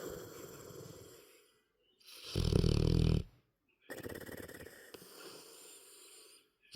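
A young dog asleep and snoring. A soft, breathy breath fades out, then one loud, vibrating snore lasts about a second, then a longer soft breath follows. The next snore starts right at the end.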